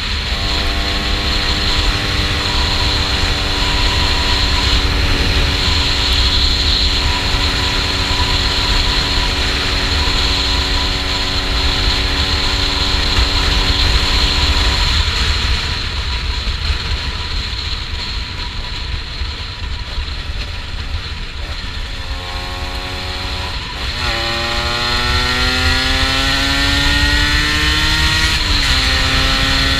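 Honda NSR 125's two-stroke single-cylinder engine under way: it holds a steady pitch at cruise for about half the time, drops away off the throttle, then climbs in pitch as the bike accelerates, with a gear change shortly before the end. A steady low rumble of wind on the microphone runs underneath.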